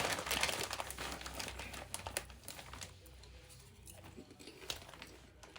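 Snack bag of popcorn crinkling and rattling as it is shaken and handled. The sound is busiest in the first two seconds or so, then thins to occasional crackles.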